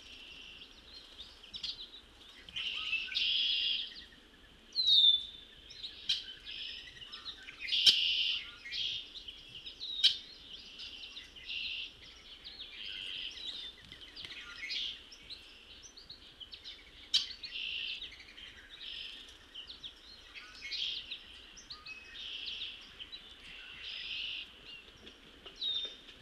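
Several songbirds singing, repeating short phrases every second or two, with a few sharp clicks among them.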